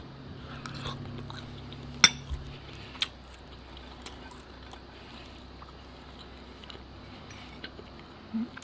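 A metal fork clinking and scraping on a ceramic plate as jerk chicken is picked off the bone by fork and fingers, with a few sharp clicks, the loudest about two seconds in, and quieter small handling sounds after.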